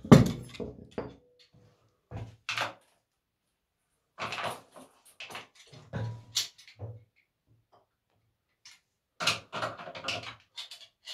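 Knocks, clunks and scraping as a plumbing fitting is handled and unscrewed, in short irregular bursts with pauses, a sharp knock at the start being the loudest.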